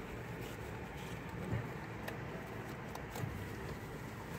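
Low, steady rumble of a car heard from inside its cabin, with a few faint clicks.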